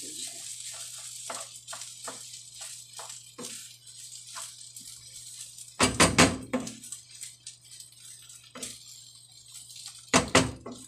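A spatula scraping and knocking against a frying pan as egg fried rice is stirred: a run of short scrapes and clicks, with louder clattering about six seconds in and again near the end.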